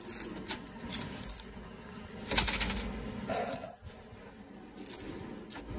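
Metal door hardware clicking and rattling as the lever handle, taped latch and a tool jammed in it as an improvised door stop are worked by hand, with a cluster of clanks about two and a half seconds in and a brief squeak just after.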